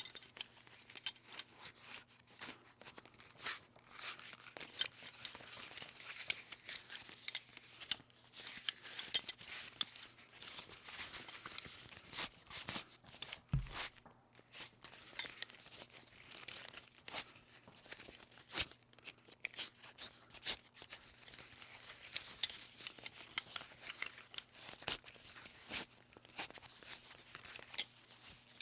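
A metal buckle being handled: a long run of irregular clicks and clinks, some with a short bright metallic ring, and one low thump about halfway through.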